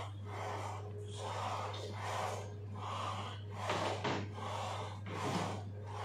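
A man breathing hard in time with leg-press reps, a forceful breath about every second, over a steady low hum.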